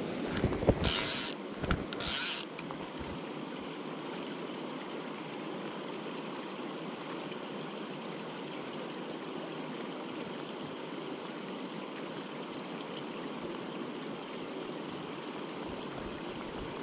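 Steady rush of a river running over rocks. In the first couple of seconds there are a few short, louder bursts of noise and low knocks.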